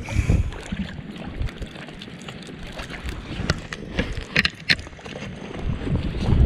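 Shallow creek water sloshing and splashing around a wader's legs and a gloved hand feeling through the water for a submerged beaver trap, with a few sharp splashy clicks about four seconds in. A low rumble of wind on the microphone comes and goes.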